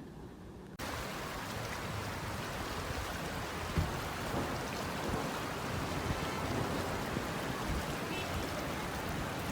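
Steady rush of water from heavy rain and floodwater, starting abruptly about a second in.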